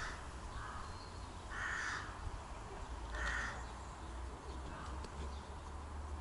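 A bird calling three times, about a second and a half apart, over a low steady rumble.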